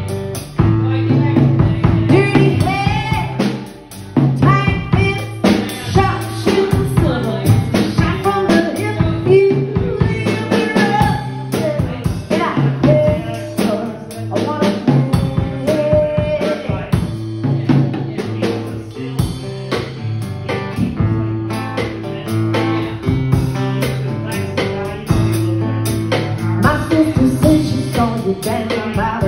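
Live band music: a strummed roundback acoustic-electric guitar over a drum kit with kick drum and rimshots, and a woman singing in parts.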